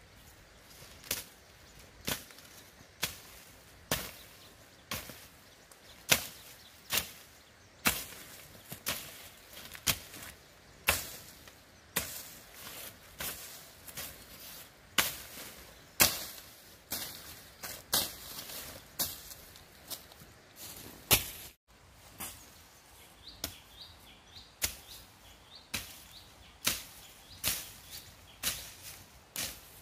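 Repeated sharp strokes of a long-handled blade chopping into dry grass, brush and soil, about one stroke a second.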